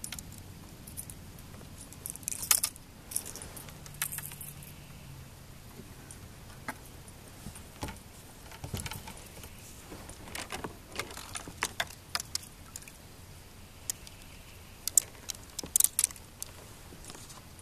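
Scattered small clicks and light jingling rattles of fishing tackle being handled aboard a kayak, in short clusters a couple of seconds in and again near the end.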